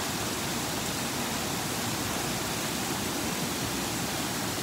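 Heavy downpour: rain falling steadily onto wet pavement, a dense, even hiss that neither swells nor breaks.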